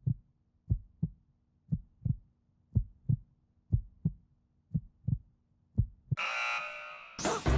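Heartbeat sound effect: a low double thump, lub-dub, about once a second. Just after 6 seconds a bright ringing burst fades out, and music starts loudly near the end.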